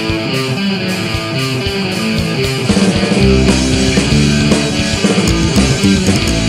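Recorded psychobilly punk rock song with a guitar riff over a beat. About three seconds in the band gets louder, with a heavy low end.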